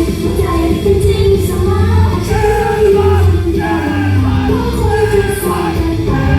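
Idol pop-rock song performed live and played loud through a concert sound system, with female singing over a band backing.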